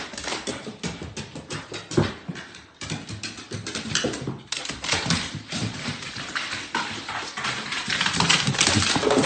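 A pet animal making sounds over a dense, irregular clicking and clattering that runs throughout.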